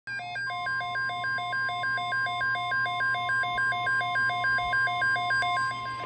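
NOAA weather radio sounding its alert: a two-tone electronic alarm alternating about three times a second over a steady 1050 Hz weather alert tone that comes in about half a second in. It signals a severe thunderstorm watch being broadcast.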